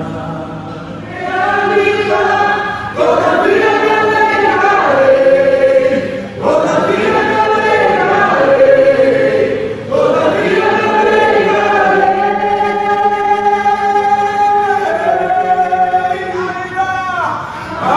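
Background music: voices singing long held phrases.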